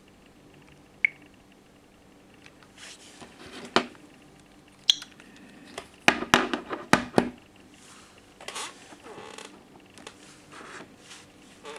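Handling noises of small hard objects: a brief high chirp about a second in, then scattered sharp clicks and knocks, a dense run of them around the middle, with light scraping between.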